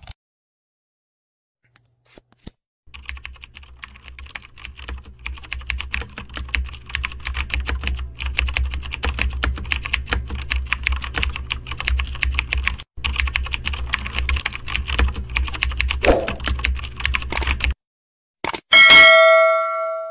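Typing sound effect: rapid computer-keyboard key clicks with a low hum underneath, running for about fifteen seconds and stopping abruptly. Near the end comes a bright notification-bell ding, the loudest sound, which rings out and fades.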